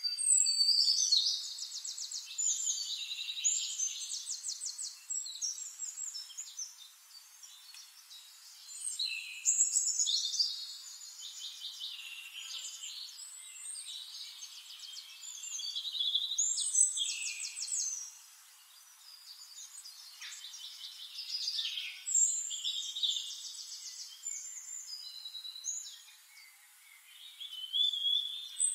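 Small songbirds singing: high-pitched, rapid trills and chirps that come in bouts every few seconds.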